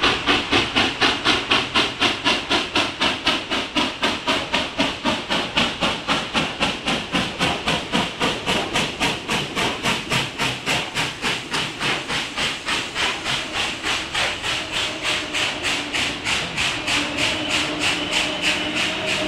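Norfolk & Western 611, a class J 4-8-4 steam locomotive, running with a rapid, even exhaust beat of about four chuffs a second. The beats grow somewhat fainter toward the end, when steady tones come in beneath them.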